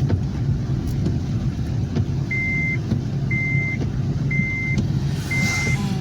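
A car driving, heard from inside, with a steady low rumble of engine and road noise. About two seconds in, a high electronic beep starts repeating about once a second, each beep about half a second long.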